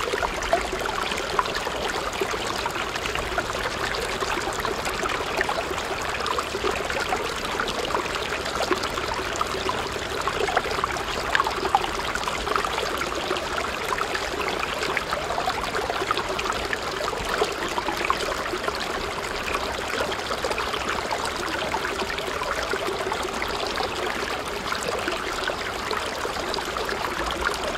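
A thin stream of water from a small pump's outlet tube pouring steadily into a shallow pool, with a continuous trickling splash.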